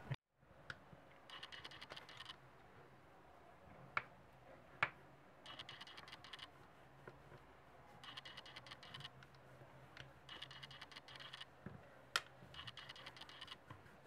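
A cloth rubbing back and forth over a leather strap in repeated short spells, a faint scratching, with a few sharp clicks in between.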